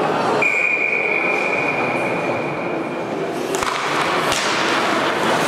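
Ice hockey rink sounds: a single steady high tone like a whistle, held for nearly three seconds over the hubbub of the hall, then a couple of sharp knocks of sticks or puck.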